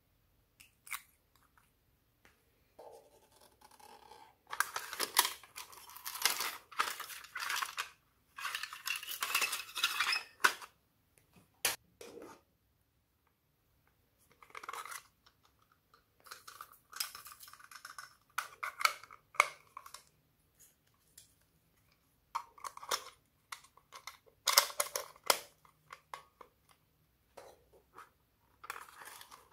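Slime being worked by hand, giving bursts of sticky crackling and clicking with short pauses between.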